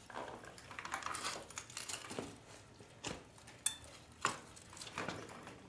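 Light metallic clinks, knocks and rustling of motorcycle parts being handled as the rear wheel comes off, with two sharper knocks around three and a half and four seconds in.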